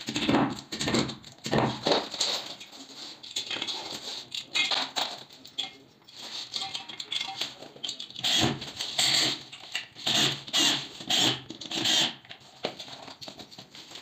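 Hammer knocking plastic wall plugs into a plaster wall with a quick run of blows, then a cordless drill driving screws through a steel radiator mounting bracket in about half a dozen short bursts.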